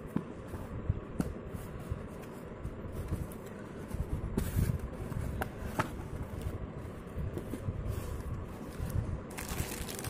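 Hands opening a small cardboard box: tape picked and peeled off and cardboard scraping and rustling as the flaps are opened, with scattered small clicks. Plastic wrapping crinkles in the last half second as it is lifted out.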